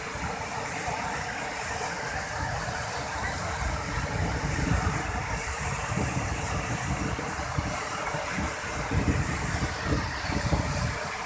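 Floodwater overflowing the spillway gates of a reservoir dam, pouring over in a steady rushing roar with an uneven, gusty low rumble underneath.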